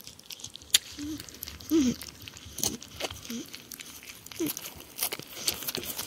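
A porcupine eating peanuts, with crunching clicks of chewing and several short, low mumbling notes that waver up and down.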